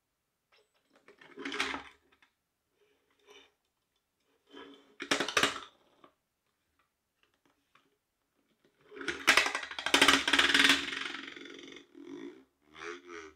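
Homemade three-phase linear motor under test: its coil mover buzzes and clatters on the magnet track in short bursts, about two seconds in, again at five seconds, and in a longer, louder burst from about nine to eleven seconds, with a wavering tone near the end.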